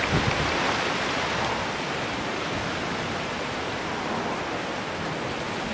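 A steady, even hiss with no speech, with a few soft low bumps in the first half second.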